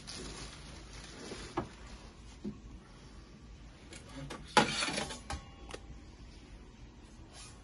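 Stainless-steel waffle maker and its metal parts being handled: scattered light knocks and rattles, with one sharper metal clunk and a short scrape about halfway through.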